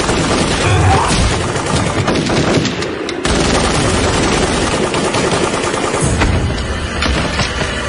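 Rapid automatic gunfire from a submachine gun, firing in bursts with a brief break about three seconds in.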